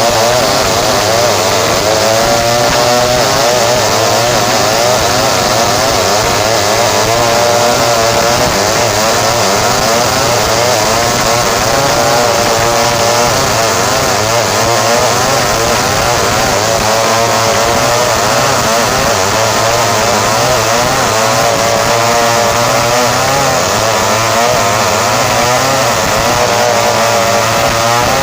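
Home-assembled chainsaw running hard and steadily, its engine pitch wavering up and down as it saws through kapur hardwood.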